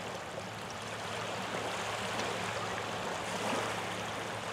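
Small waves washing on a shoreline: a steady hiss of moving water, with a faint low hum beneath it.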